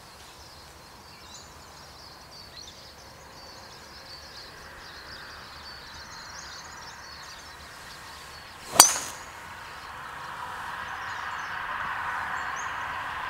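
Golf driver striking a teed ball: a single sharp crack about two-thirds of the way through.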